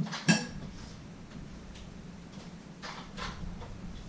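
A utensil clinks sharply once against a bowl with a short ring, followed by a few fainter taps about three seconds in.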